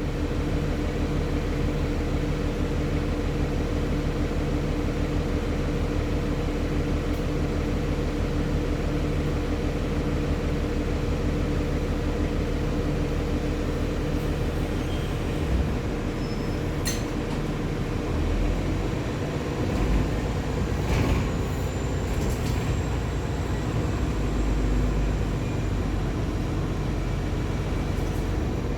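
Nova Bus city bus with a ZF automatic transmission running, a steady engine drone. Its pitch shifts a little past halfway, with a couple of short knocks and a faint high whine gliding late on.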